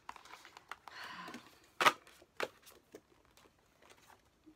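Album contents being handled. A brief crinkling rustle about a second in is followed by a sharp tap, the loudest sound, then a second tap and a few light clicks.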